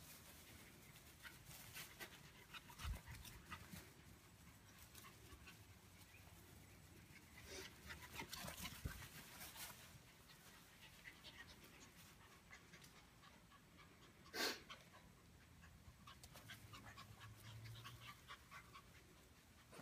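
Faint panting and scuffling of two small dogs playing on grass, with scattered light clicks and one short, sharp noise about fourteen seconds in.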